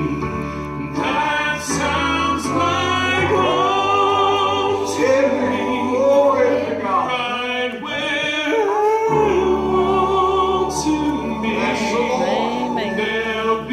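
Gospel music: voices singing a wordless or unclear passage, holding and bending long notes.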